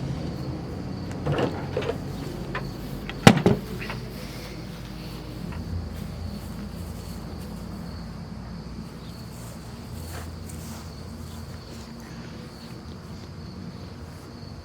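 A single sharp knock about three seconds in, with a couple of softer clunks before it, over a steady low hum.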